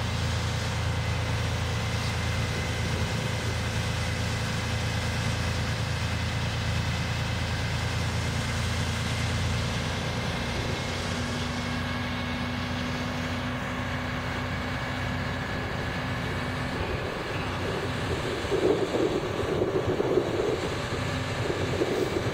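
An engine running steadily with a low hum and faint steady whining tones. The hum eases off about halfway through, and from about eighteen seconds in, irregular rumbling gusts, like wind on the microphone, come over it.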